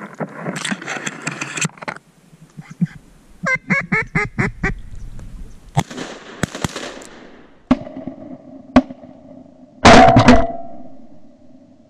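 Duck quacking, busy at first and then a run of about eight quacks, followed by scattered shotgun shots and, about ten seconds in, a loud quick volley of shotgun blasts that rings out and is the loudest sound.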